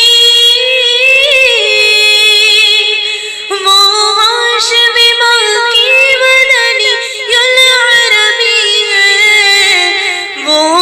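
An Urdu naat sung by a high voice, with long melismatic notes that glide up and down and no audible accompaniment.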